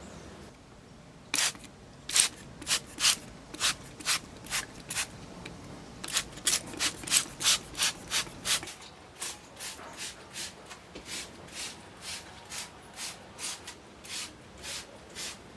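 Repeated short rubbing strokes of a hand tool on the wall surface, starting about a second and a half in. They are louder and quicker in the first half, then go on softer at about two to three strokes a second.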